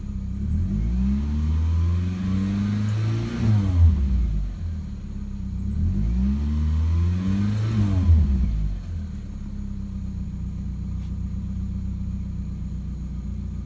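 2000 Mitsubishi Eclipse GTS 2.4L four-cylinder engine, which has an exhaust leak, revved up and let back down twice, then settling to a steady idle about nine seconds in.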